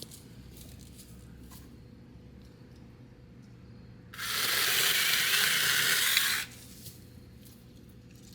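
Battery-powered mini chainsaw cutting through a pine limb. A harsh, rasping cut of about two seconds starts about four seconds in and stops abruptly, with light clicks and rustling before and after.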